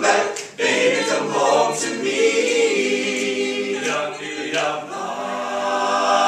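All-male a cappella group singing the closing bars of a doo-wop song in harmony, with no instruments, ending on a long held chord.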